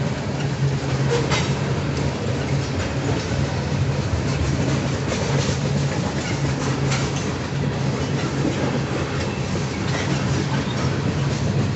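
Freight train cars rolling past: a steady rumble of steel wheels on rail, with a few sharp clicks scattered through it.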